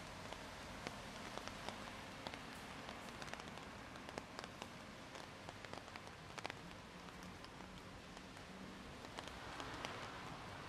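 Steady rain falling, with many scattered sharp drops striking close by. The hiss swells briefly near the end.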